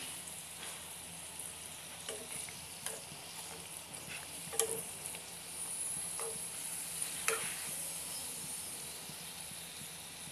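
Flower pitha dough rosettes deep-frying in hot oil with a steady sizzle, while a metal spoon knocks against the pan a few times as oil is spooned over them.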